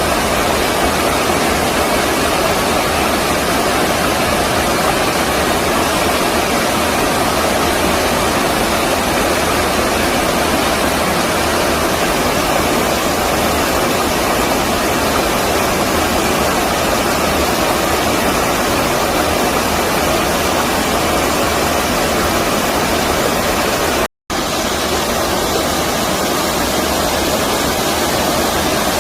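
Stream water rushing steadily over a shallow weir or rapids, a loud even wash, broken once by a split-second dropout to silence.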